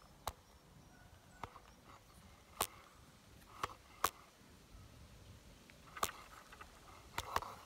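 A wheelchair trike rolling over a gravel path: a low rumble broken by sharp clicks and knocks at irregular intervals, about eight in all.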